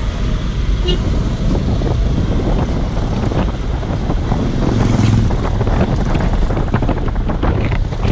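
Engine and road noise of a car driving along a street, a steady low rumble with wind buffeting the microphone.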